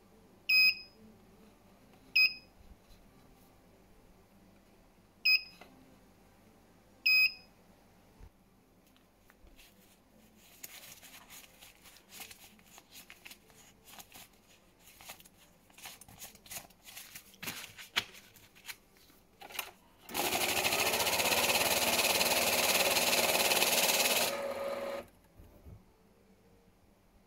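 CashTek ST-8192T banknote counter: four short touch-screen key beeps, then paper rustling and crackling as a stack of mixed rupiah banknotes is handled and loaded. The loudest part is the machine's feed mechanism running for about four seconds, drawing the stack of 70 notes through and counting them, and it stops abruptly.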